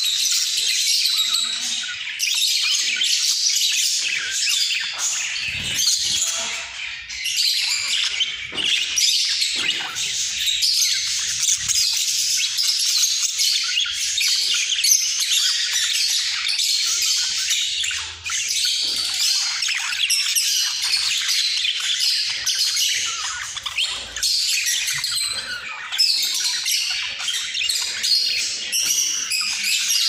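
Budgerigars warbling and chattering without pause, many high chirps and squawks overlapping from several birds at once.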